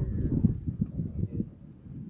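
Wind buffeting the microphone: an irregular low rumble that eases after about a second and a half.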